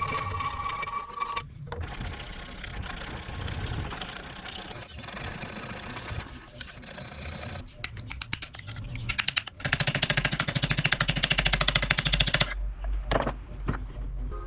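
Knife-making workshop sounds: tool and metal handling, then about three seconds of a power tool running with a fast, even rattle, followed by a few short knocks.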